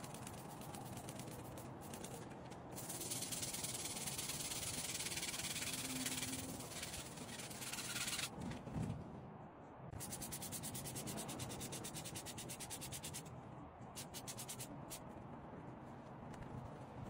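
Hand scrubbing on a wet motorcycle rear tyre and wheel: a rasping rub made in quick back-and-forth strokes, louder through the first half and pausing briefly about ten seconds in.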